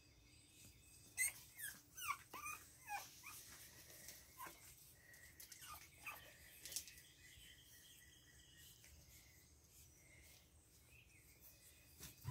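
Pug puppies whining faintly in a string of short, high, falling whimpers, most of them bunched in the first few seconds. They are pleading to be let up onto the porch to their owner.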